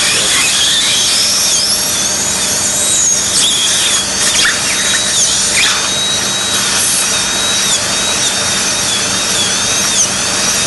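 Surgical dental drill cutting a vertical osteotomy in the jawbone for a basal implant: a continuous high whine that dips in pitch again and again.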